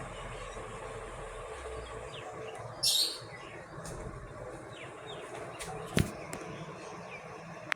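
Daitoshi 56-inch ceiling fan running with a steady hum and whoosh. A brief high hiss comes about three seconds in, a sharp click about six seconds in, and a few faint short chirps.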